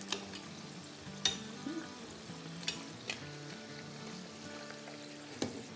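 Batter-coated potato fries deep-frying in hot oil with a steady sizzle. A knife and a metal slotted spoon clink sharply against each other and the pot about five times as stuck fries are pulled apart.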